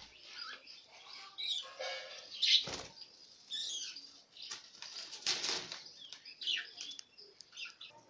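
Budgerigars fluttering their wings in a cage as one is caught by hand, with short chirps scattered through.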